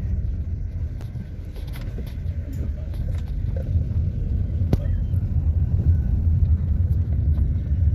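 Steady low rumble of a car in motion, heard from inside the vehicle: engine and road noise, with a couple of faint clicks.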